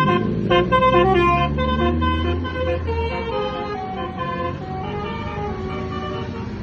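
A bus's multi-tone 'telolet' horn playing a tune: a quick run of short notes, then longer held notes, over the low rumble of the bus engine. The engine rumble drops away about three seconds in, and the horn slowly fades.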